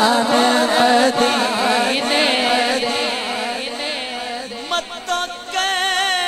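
A man sings a Punjabi naat into a microphone, stretching the line into long held, ornamented notes whose pitch wavers continuously.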